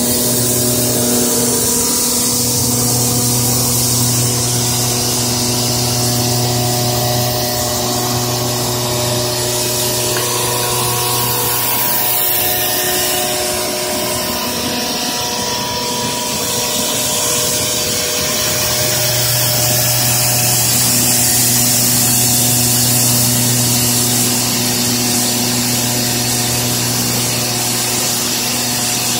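Hexagon paper tube machine running steadily, a constant mechanical noise of motors and drive with a low hum and a high hiss. The low hum fades for several seconds midway, then returns.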